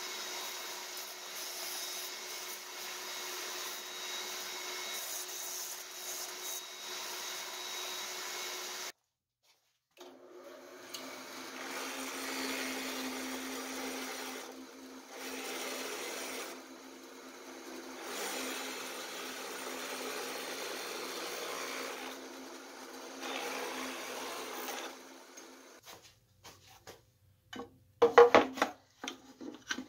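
A bandsaw running and cutting through a pine board. After a short break, a benchtop drill press running and boring into a wooden block, its sound dipping briefly every few seconds. Near the end, a few sharp knocks and clatter of tools and wood handled on the bench.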